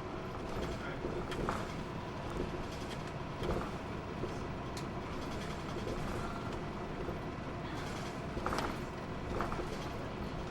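Interior running sound of a Hino Blue Ribbon II city bus under way: steady engine and road noise with a faint steady drivetrain hum. A few short rattles and creaks from the body come through, the loudest a little after three seconds in and again at about eight and a half seconds.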